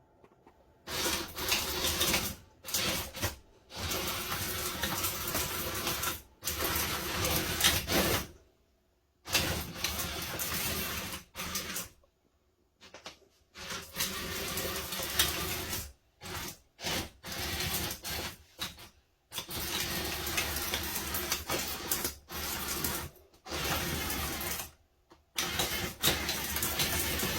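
Cordless drill motors driving a large Wall-E robot, whirring in many short bursts that start and stop abruptly, with brief silent pauses between.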